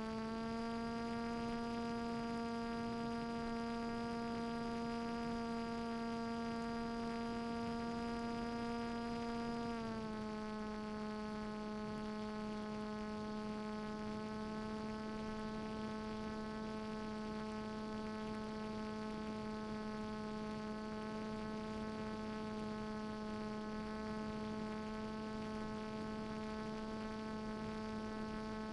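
Brushless outrunner electric motor and propeller of a flying-wing model aircraft, running steadily; its pitch rises slightly at the start and drops a little about ten seconds in.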